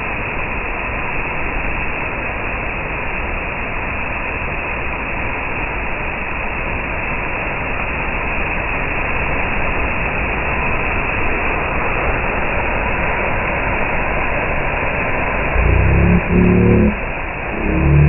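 Waterfall pouring into a plunge pool close by, a loud, steady rush of falling and churning water. Near the end, low rumbling bursts come in over it.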